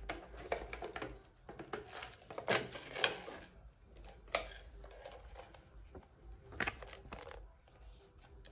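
Paper lid of an instant-noodle cup being peeled back, with crinkling and irregular sharp crackles and rustles as the cup is handled.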